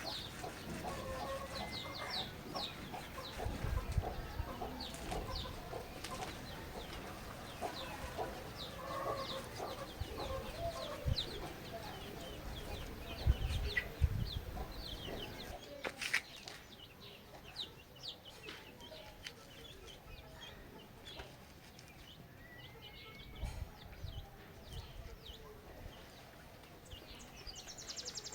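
Domestic hens clucking amid many short, high-pitched bird chirps, with a few dull low thumps; the calls thin out after about halfway.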